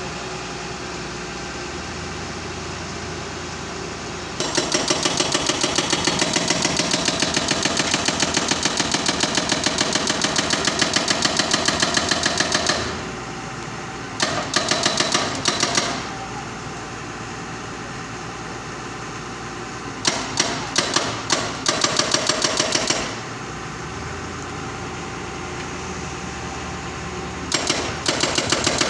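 Doosan excavator-mounted hydraulic breaker hammering a concrete pile in rapid, even blows: a long run of about eight seconds, then three shorter bursts. The excavator's diesel engine runs steadily between them.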